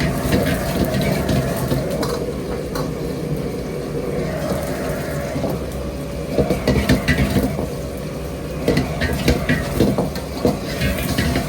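Dishes and utensils clattering and clinking, in clusters over a steady low background hum.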